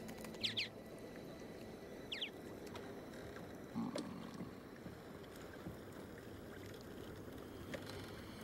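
Sea water washing and lapping steadily around a small fishing boat. A small bird gives two short falling chirps in the first couple of seconds, and there is a soft knock about four seconds in.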